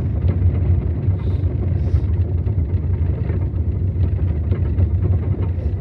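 Steady low rumble of a running vehicle or machine, with an even hiss above it.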